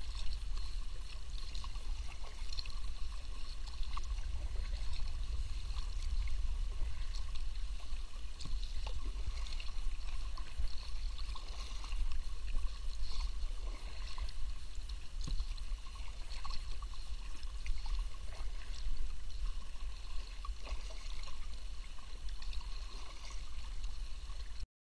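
Kayak paddle strokes in the water, with water trickling and dripping off the blade in scattered small splashes, over a low steady rumble on the small camera's microphone.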